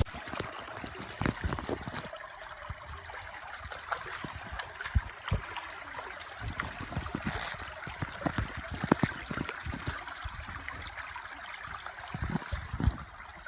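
River water flowing and trickling steadily, with scattered small splashes and clicks.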